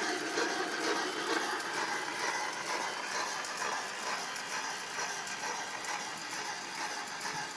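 Homemade horse stall bedding sifter shaking, a continuous mechanical rattle and clatter.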